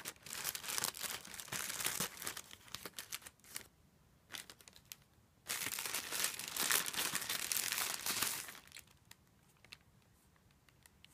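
Plastic poly mailer bag crinkling as it is handled, then torn open: a few seconds of dense crackle, a pause with a few short rustles, a second long stretch of crackling and tearing about halfway through, and only faint rustles near the end.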